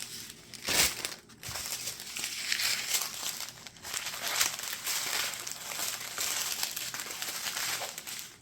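Small plastic bags of diamond painting drills crinkling as they are handled and sorted one after another, with a couple of brief pauses.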